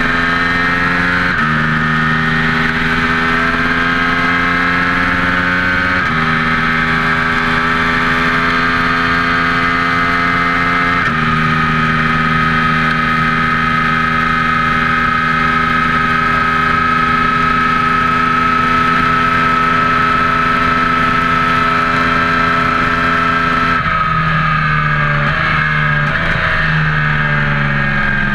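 A vehicle engine running steadily, its pitch shifting in steps a few times and then several times in quick succession near the end. A steady high tone runs above it.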